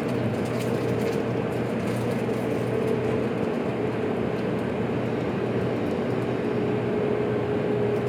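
JR Kyushu 783 series electric train running, a steady rumble of rail noise with a thin steady whine throughout that grows slightly stronger near the end.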